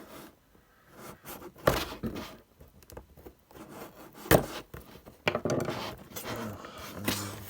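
Cardboard packaging of a diecast model car being opened by hand: card rubbing and scraping, with a few sharp knocks, the loudest about four seconds in.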